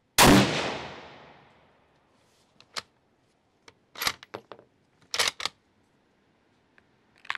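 A Sabatti Tactical EVO bolt-action rifle in 6.5 Creedmoor, fitted with a muzzle brake, fires one shot, and the report trails off over about a second and a half. The bolt is then worked with a run of short metallic clicks and clacks, ejecting the spent case and chambering the next round.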